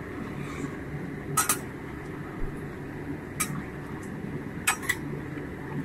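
A metal spatula stirring chicken in a wok, clinking sharply against the pan three times over a steady low background rumble.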